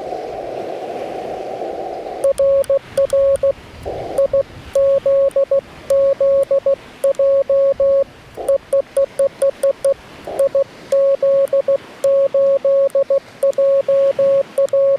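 Morse code sent on a Yaesu FT-891 with paddles, heard as the radio's steady single-pitch sidetone keyed in dots and dashes. It starts about two seconds in after a stretch of receiver band hiss, and short patches of hiss return in the gaps between groups of characters.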